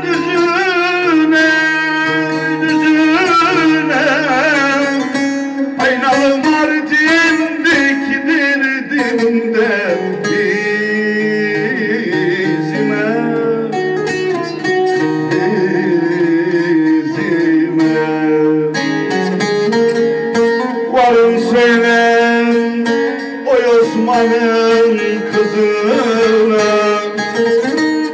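Live Turkish folk music: a bağlama (long-necked saz) plucked in a running melody, with a man's voice singing long, wavering held lines over it.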